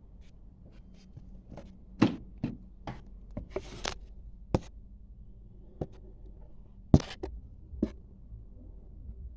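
A series of irregular sharp clicks and knocks, about ten in all, the loudest about two seconds in and about seven seconds in, with a brief scraping rustle about three and a half seconds in, over a faint low steady hum.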